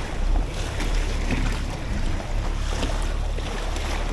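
Wind buffeting the microphone over the wash of sea water around the boats, a steady low rumble with no distinct events.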